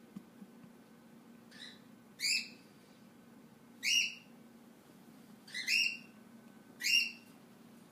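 Small dog yipping and whimpering in its sleep: about five short, high-pitched squeaky yips, each bending slightly upward, spaced a second or so apart, the first one faint.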